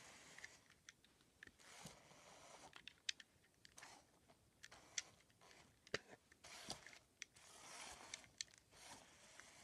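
Near silence with faint, scattered sharp clicks and short soft crackling rustles.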